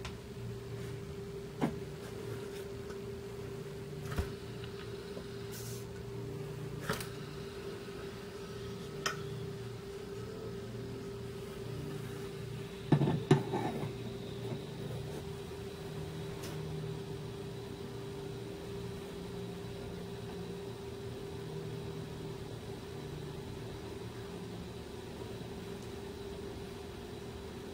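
Kingpin Imperial centrepin reel: a short clatter of knocks as a hand flicks the spool about halfway through, then the spool turns freely on its bearings, almost silently, under a steady background hum. A few single clicks come before the flick.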